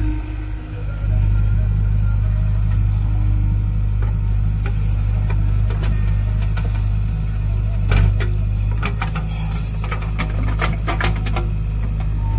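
Diesel engine of a JCB 3DX backhoe loader running steadily under work. Through the middle and latter part comes a run of sharp clanks and knocks, with one heavy thump about eight seconds in.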